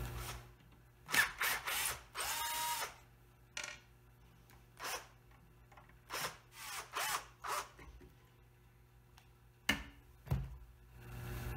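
Cordless drill/driver run in short spurts, backing out the four screws that hold a wooden chair back to its metal frame; the longest spurt, a couple of seconds in, gives a whine that spins up and winds down. Near the end come two sharp knocks as the wooden back is worked off the frame.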